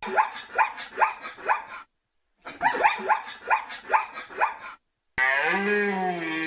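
A dog barking in quick, even runs of about three barks a second, twice with a short break between. Near the end a cow begins a long, low moo.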